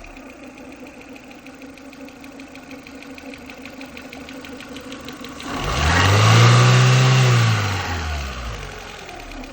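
Renault Twingo 1.2 58 PS petrol engine idling with a fast regular ticking, then revved once about six seconds in, rising and falling back to idle. These are the strange noises it has made since its timing belt was changed.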